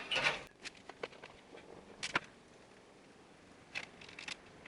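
Handling noise from PC parts being fitted into a computer case: a short scrape, then scattered light clicks and knocks.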